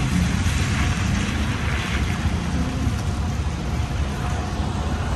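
Semi truck's diesel engine running, a steady low rumble under an even hiss.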